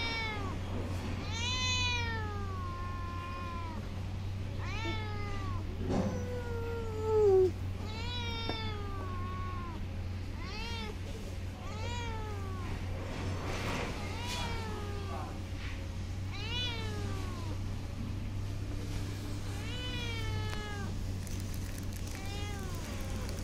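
Young cat meowing repeatedly, about one meow every second or so, each call rising and then falling in pitch.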